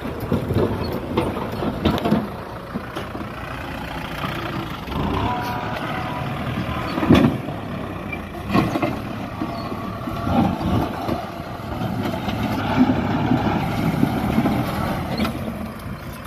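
Kubota M6040 tractor's four-cylinder diesel engine running under load as its front blade pushes broken concrete rubble, with scraping and sharp knocks of concrete pieces, the loudest about seven and eight and a half seconds in.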